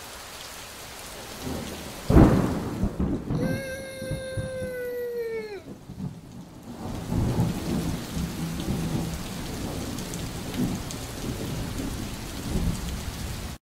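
Storm sound effects: steady rain hiss, a sharp thunderclap about two seconds in, and rolling thunder rumbling under the rain through the second half. Shortly after the clap comes a long, held, pitched cry that bends down in pitch at its end.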